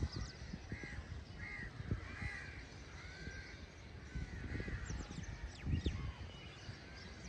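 House crows cawing, a run of short harsh calls spaced roughly half a second to a second apart, over a low steady rumble.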